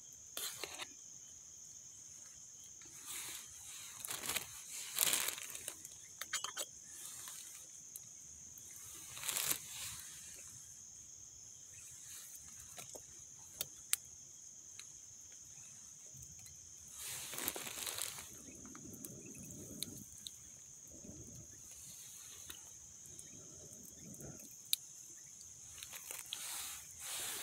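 Hands tending a small wood cooking fire: intermittent rustling and crinkling with a few sharp clicks and snaps, over a steady high-pitched hiss.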